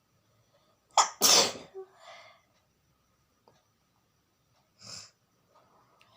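A woman sneezes once, loudly, about a second in: a quick intake, then the explosive sneeze, a deliberately provoked one. A short trailing breath follows, and a softer breathy sniff comes near the end.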